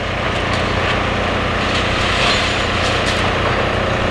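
Demolition excavators' diesel engines running steadily under load, with a few light knocks and scrapes of concrete being moved.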